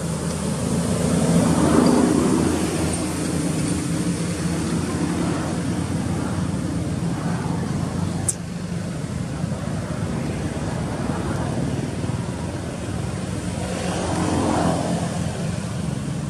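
Motor vehicle engines droning steadily, swelling as they pass near the start and again near the end, with a single sharp click about eight seconds in.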